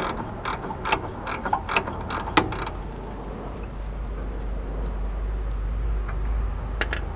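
Metal clicking and knocking of a suspension fork bolt being twisted and wiggled to line it up through the fork and lower control arm of a 1998 Acura Integra GSR, about three sharp clicks a second for the first two and a half seconds. Then a low steady rumble, with two more clicks near the end.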